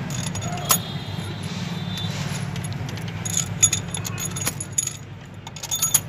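Steel cylinder-head bolts clinking as they are dropped into the bolt holes of a Tata Indica V2 cylinder head: several short, sharp metal clinks over a steady low background hum.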